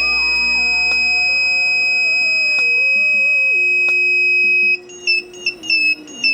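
Electronic buzzer of a flame-sensor fire alarm, sounding a steady high-pitched tone that breaks into a quick string of short beeps about three-quarters of the way through. Background music plays underneath.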